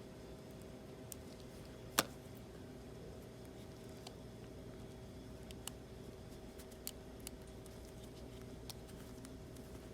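Small, sharp clicks and taps of handheld repair tools on the device: one sharper click about two seconds in and a few lighter ones later, over a steady electrical hum.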